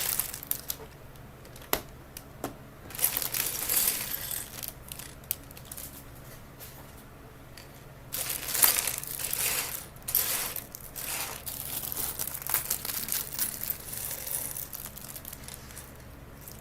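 A plastic bag of LEGO pieces crinkling and tearing open in several bursts, with small plastic bricks clicking and clattering.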